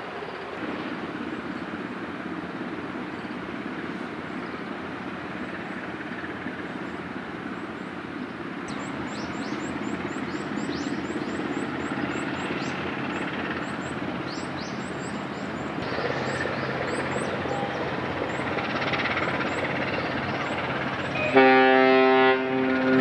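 A steady low rumble builds slowly, with quick high chirps through the middle stretch. About a second and a half before the end, the car carrier Hoegh Shanghai's ship horn sounds a deep steady blast, the loudest sound, which breaks off briefly and resumes.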